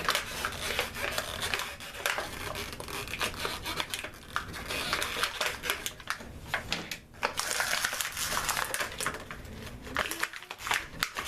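Toy packaging being wrestled open by hand: dense crinkling and crackling with many small clicks, pausing briefly twice.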